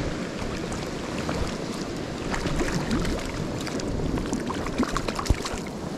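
Lake water sloshing and splashing in many small irregular splashes, over a steady wash of wind on the microphone.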